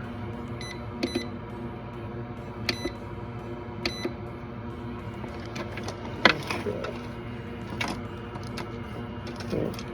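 Three short, high electronic beeps, well spaced, about one, three and four seconds in, followed by several sharp clicks and taps of handling on the workbench, the loudest about six seconds in.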